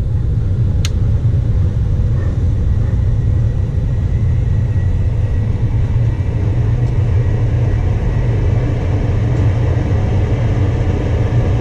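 Lennox G61MPV gas furnace running after start-up, its fan motor making a steady low rumble, with one sharp click about a second in. The technician suspects a bad relay on its control board, which keeps cutting the furnace out.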